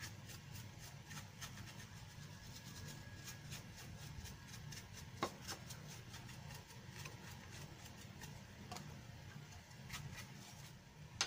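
Small paintbrush scrubbing dust off a router's circuit board: a run of faint, quick bristle strokes, with a sharper click about five seconds in.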